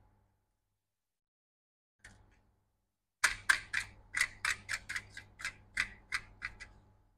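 Brush dusting a laptop logic board: a run of quick, scratchy strokes, about four a second, starting about three seconds in, with one faint stroke a second before.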